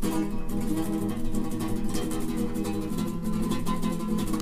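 Acoustic guitar strummed fast, steady chords with no singing.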